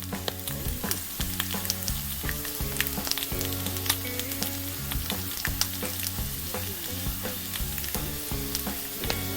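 Food sizzling on a charcoal grill: a steady hiss with many small crackles and pops.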